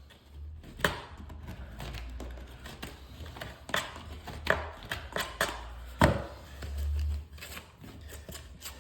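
Scattered sharp knocks and clicks of laminate flooring planks being handled and worked into place, the strongest about a second in and around the middle, over a steady low rumble.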